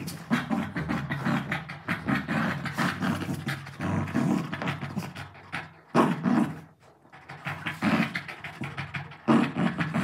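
Dogs play-growling while tugging at a pillow: a rough, pulsing rumble that keeps going, with a sudden louder growl about six seconds in, a short lull just after, and another louder one near the end.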